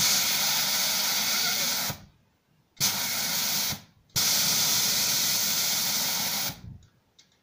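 Compressed air blasting from an air blow gun fed by the compressor, in three loud hissing bursts: about two seconds, then a shorter one of about a second, then about two and a half seconds, each starting and cutting off abruptly.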